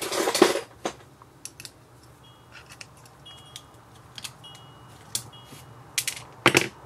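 Small metal clicks and clinks of a thin metal tool tapping and scraping on a small plug-in USB charger's circuit board and components while it is handled. There is a louder clatter at the start and another near the end.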